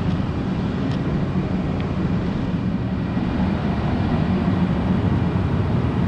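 Outdoor air-conditioner condensing units running: a steady low hum with fan-air noise over it.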